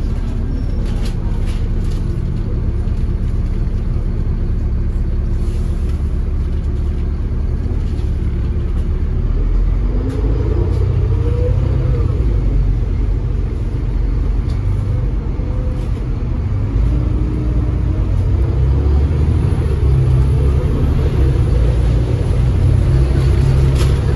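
Dublin Bus AX-class Volvo B7TL double-decker heard from inside while under way: a steady low engine and road rumble, with a rising whine about ten seconds in as the bus speeds up and gets louder.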